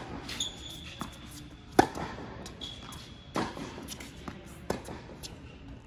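Tennis rally on an indoor hard court: sharp pops of rackets striking the ball and the ball bouncing, the loudest hit about two seconds in, with short high squeaks of shoes on the court between shots.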